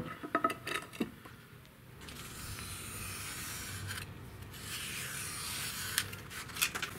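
A blade drawn along a metal straightedge, cutting through a sheet of foam board with a steady scratching sound. A few light knocks come in the first second, from the wooden oven box being handled.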